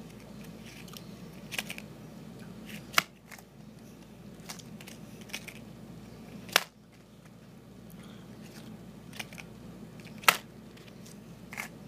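Handling noise: three loud sharp clicks a few seconds apart and a handful of fainter ticks and rustles, over a low steady hum.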